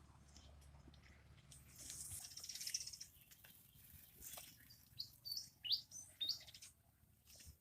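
A small bird chirping: a handful of short, quick high chirps in the second half, over faint rustling and light clicks, with a brief hissing rustle about two seconds in.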